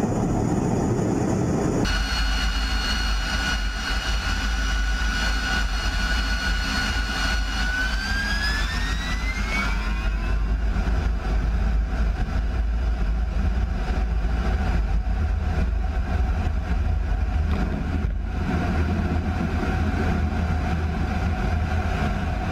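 Fighter jet engines heard from inside the cockpit: a steady turbine whine that rises in pitch about eight seconds in as the engines spool up to full power, then a steady full-power rumble through a carrier launch and climb-out.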